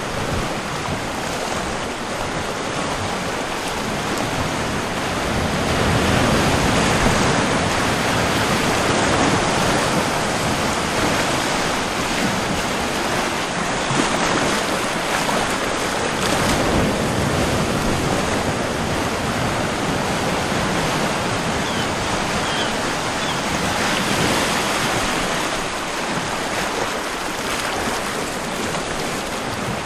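Steady rushing noise with no clear pitch or rhythm, swelling slightly about six seconds in.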